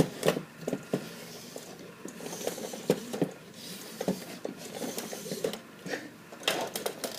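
Printer print-head carriage being pushed by hand along its rail, with irregular plastic clicks and rattles and a couple of brief sliding rasps.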